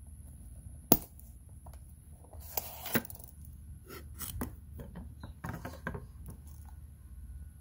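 A leather knife sheath's snap popping open with a sharp click about a second in, then leather rustling and light clicks and taps as the knife is drawn out and laid on a wooden cutting board.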